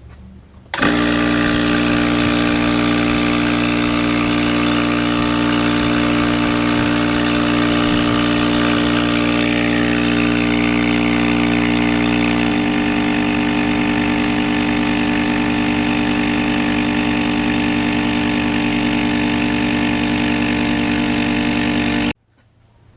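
Craftsman 30-gallon air compressor, freshly rebuilt with a new piston, cylinder and valve seals, running on a test fill: a loud, steady motor-and-pump drone. It starts suddenly about a second in, its tone shifts about halfway through, and it cuts off suddenly near the end.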